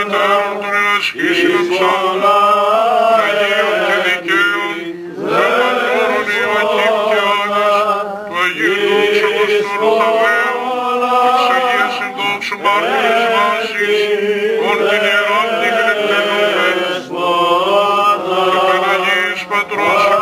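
Greek Orthodox Byzantine chant: a melodic vocal line with ornamented, gliding notes sung over a steady held drone note (the ison), with brief breaths about five and eight seconds in.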